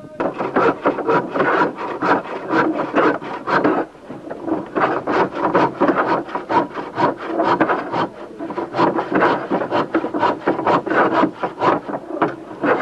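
Fast back-and-forth rasping strokes of a hand tool worked against wood, about five strokes a second, with a short pause about four seconds in.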